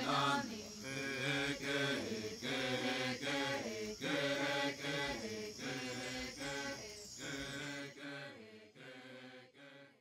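Rhythmic chanting in a repeated sing-song phrase over a steady low drone, fading out near the end.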